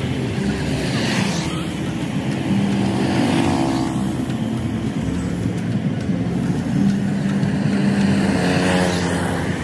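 Road traffic: motorbikes and cars running past on a city road, with a steady traffic hum and two vehicles passing close by, one about a third of the way in and one near the end, their engine note sliding in pitch as they go by.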